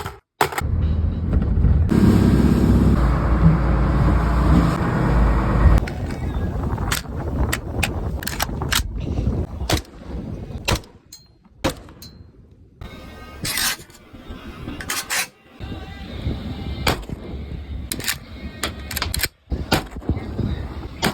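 Background music with heavy bass, broken up by abrupt cuts and many sharp bangs.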